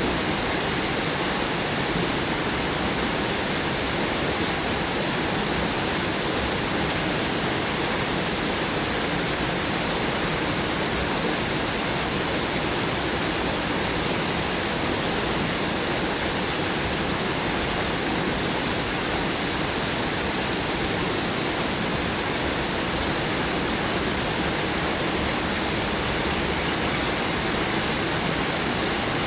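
Heavy rain pouring down in a storm: a dense, steady hiss that does not let up.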